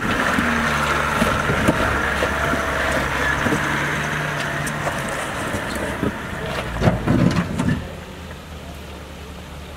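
GMC Sierra AT4 pickup's Duramax turbo-diesel engine pulling steadily at low speed as the truck crawls over large rocks, with tyres grinding and rocks knocking under them. A cluster of louder knocks and crunches comes near the end, and then the engine sound drops away.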